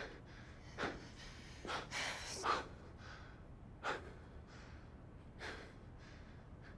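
A man breathing hard and out of breath after running, a string of heavy gasping breaths about a second apart that grow fainter after a few seconds.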